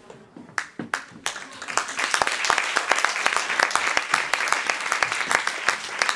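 Audience applauding: a few scattered claps at first, building to full, steady applause about two seconds in.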